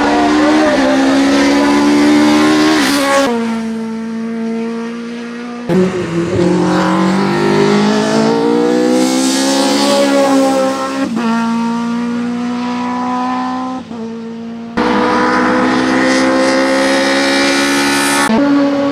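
Race-prepared Opel Kadett E's 2.0-litre four-cylinder engine at full throttle, revving hard, with the pitch climbing and then dropping at gear changes. The sound changes abruptly a few times.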